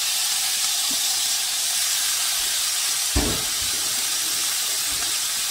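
Oil-marinated octopus legs and pieces sizzling on a hot ridged griddle pan, a steady hiss, with one short low thump a little over halfway through.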